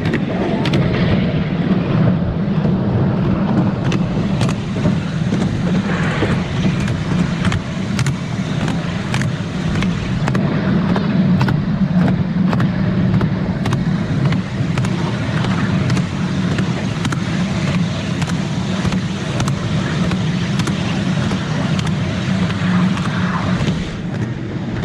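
Ride-on miniature railway train running along its track: a steady low rumble of the carriages with frequent sharp clicks and clacks from the wheels.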